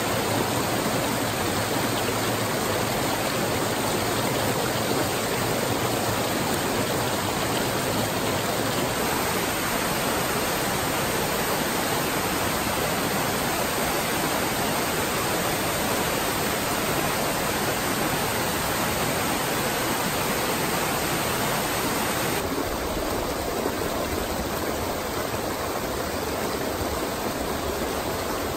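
Rushing water of a small woodland stream with cascades and a waterfall: a steady splashing noise that shifts in tone twice.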